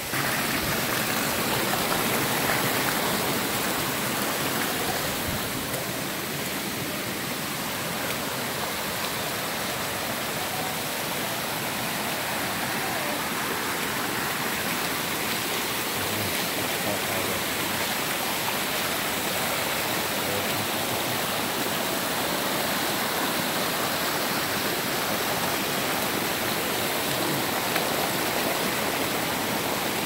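Shallow stream rushing steadily over rock ledges and small cascades.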